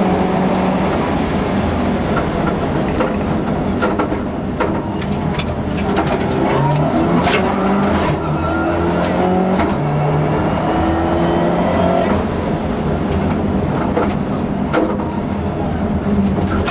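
Subaru Impreza rally car's flat-four engine at full throttle, heard from inside the cabin, its revs climbing and dropping back with each gear change. Scattered sharp clicks and knocks sound through it.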